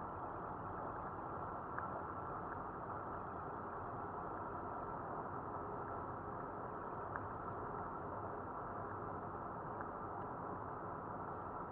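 Steady car cabin noise from a moving car: engine and tyre rumble heard from inside, with a couple of faint ticks.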